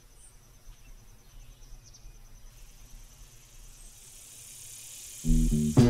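Faint insect trilling, like crickets, a thin pulsing high tone over quiet outdoor ambience, fading after a couple of seconds. A hiss then swells up, and upbeat funky music cuts in loudly near the end.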